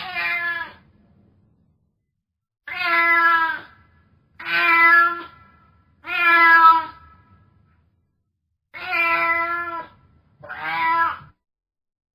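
Domestic cat meowing: six drawn-out meows of about a second each, a second or two apart.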